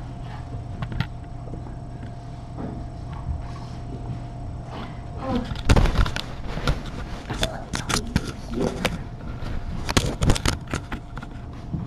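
Clatter of knocks and rustling close to the microphone as something brushes past the camera, in bunches from about halfway through, over a steady low electrical hum.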